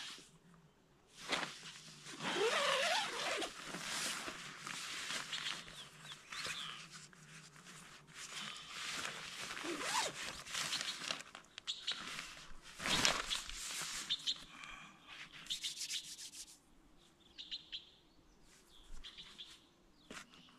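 Tent door being unzipped and nylon tent fabric rustling as the flap is pushed open from inside, in irregular scraping bursts.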